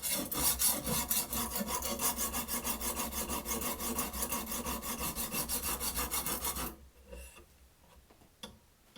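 Sharpening stone on a Ruixin Pro guided-rod sharpener rubbed rapidly back and forth along a clamped steel knife blade, a dense rasping scrape of several strokes a second that stops nearly seven seconds in.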